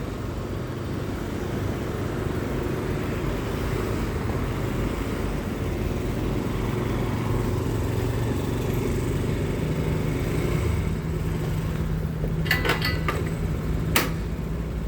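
Steady road noise from riding a bicycle along a city street, with motor traffic around. A low engine hum sets in about two-thirds of the way through, and a few short, sharp sounds come near the end.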